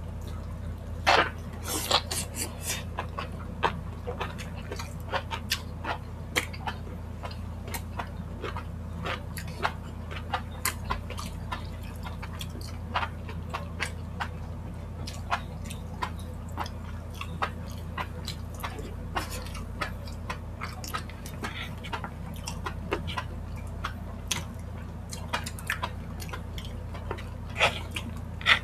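Close-miked eating of spicy chicken feet: wet lip smacks, sucking and chewing as a string of short clicks, the loudest about a second in and near the end, over a steady low hum.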